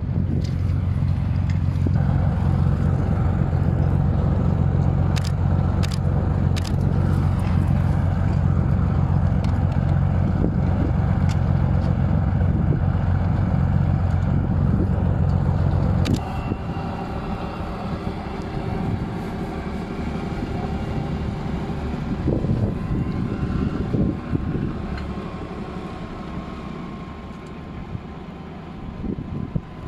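BMP-2 infantry fighting vehicle's UTD-20 diesel engine running loudly with a deep, steady note. About halfway through the sound drops and turns quieter, with a faint steady whine and scattered clicks.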